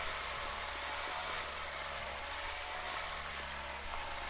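Draper 66803 orbital sander running steadily while sanding a door with rough paper: a constant hiss of abrasive on the surface over a low motor hum.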